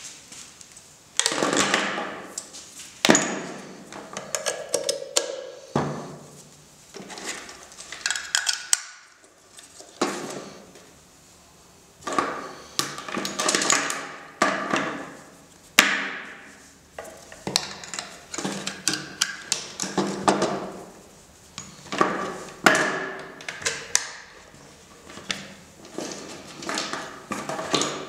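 Irregular knocks, clicks and clatter of handling noise as audio cables and jack plugs are pushed into pedals and a small mixer on a wooden table, each knock with a short ringing tail.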